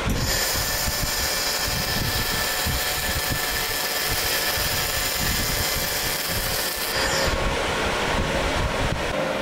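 Handheld laser welder in seam-cleaning mode pre-cleaning a steel T-joint, burning the surface layer off the joint line: a steady hiss that starts just after the beginning and cuts off about seven seconds in.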